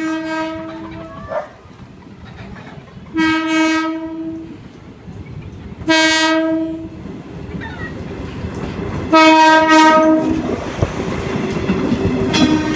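Horn of a KiHa 35 diesel multiple unit sounding repeated single-note blasts: one ending about a second in, then four more roughly three seconds apart, the last starting near the end. Under the horn, the rumble of the railcar's engine and wheels on the rails grows louder from about two-thirds of the way through as the train comes alongside.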